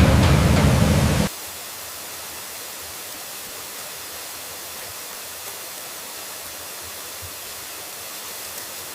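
A loud, deep rumbling rush cuts off suddenly about a second in, leaving a steady, even hiss of falling water from a waterfall.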